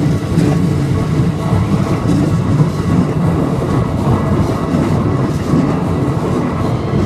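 Keikyu electric train passing over a level crossing at close range: a loud, steady rumble of wheels on rails.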